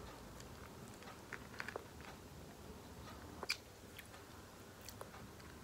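Faint chewing of a mouthful of chickpea 'tuna' sandwich on wholemeal bread, with a few small, scattered mouth clicks and crunches.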